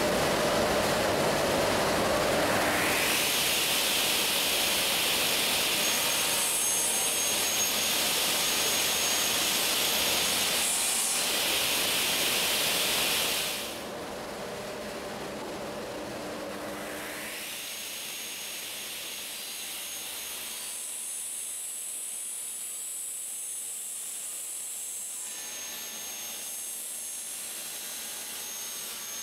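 Sliding-table panel saw running: the circular blade spins up with a rising whine, twice, then holds at a steady high whine. The sound drops noticeably in level about halfway.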